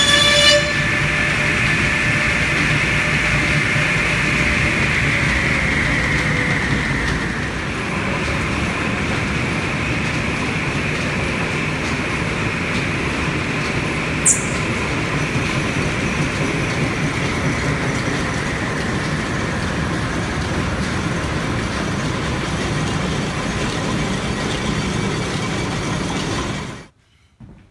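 Lineshaft-driven woodworking machinery running: a steady mechanical rumble of the constantly turning line shaft, flat belts and pulleys. A high-pitched cutting sound stops in the first half second, a whine then falls slowly in pitch over the next several seconds, and a brief high squeak comes about halfway through; the sound cuts off suddenly near the end.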